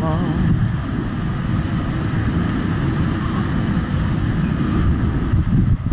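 Wind buffeting the microphone of a moving rider, a steady low rumble mixed with road noise.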